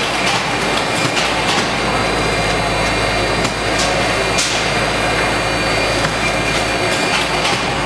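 Automatic pouch filling and sealing machine running with its belt conveyor: a steady mechanical noise over a low hum, with sharp clicks and clacks at irregular intervals.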